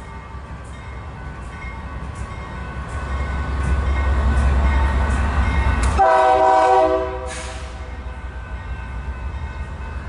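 A train approaching and passing while sounding its horn, with a deep rumble under it. The horn grows louder as the train nears, drops in pitch as it passes about six seconds in, and stops about a second later; a faint regular ticking runs underneath.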